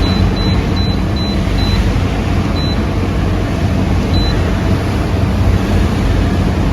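Short, high electronic beeps from a commercial dehumidifier's control panel as the timer button is pressed again and again to step the start timer up in hours. The beeps come about three a second for the first two seconds, then twice more farther apart, over a steady loud rushing noise.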